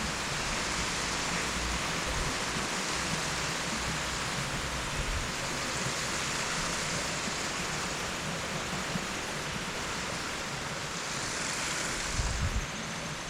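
Pressure washer spraying, a steady high-pressure water hiss against pavement, with a brief low thump near the end.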